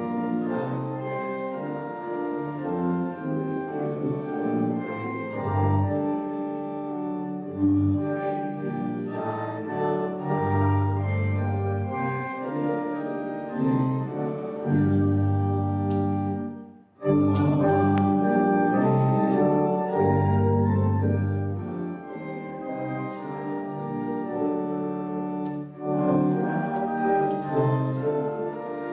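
Pipe organ playing a hymn in sustained chords over deep low notes. The music stops briefly about seventeen seconds in, then starts again.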